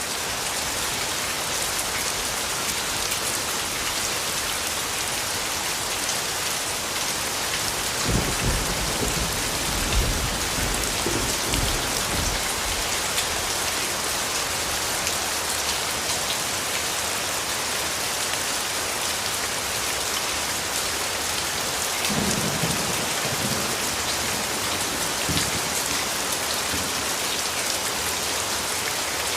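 Steady, dense rain hiss. Low rumbles of thunder swell under it for several seconds starting about eight seconds in, and again more briefly a little after twenty seconds.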